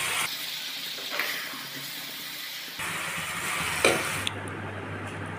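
A pan of potato-and-brinjal curry sizzling as it finishes cooking, with one sharp clink a little before four seconds in. The sizzle gives way to a low steady hum near the end.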